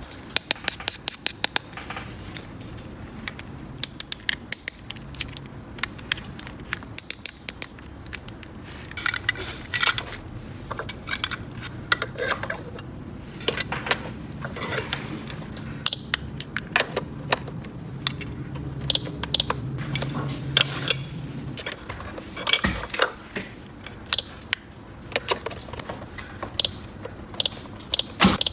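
Small plastic toy pieces being handled: many sharp clicks and taps, some in quick runs, with a few short high-pitched chirps in the second half.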